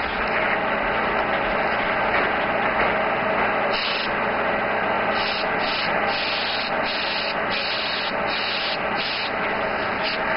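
Airbrush spraying paint: a steady hiss of compressed air.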